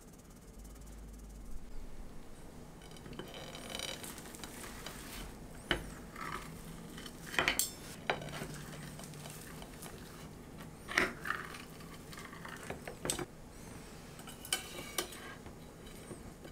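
Metal utensil clinking and scraping on a ceramic plate as a soft cake is cut into wedges, with a handful of sharp clinks between quieter scrapes.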